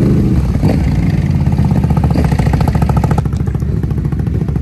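Can-Am Renegade ATV V-twin engines running and being revved on a dirt drag strip. The pitch rises just after the start, and the upper engine note eases off a little past three seconds in.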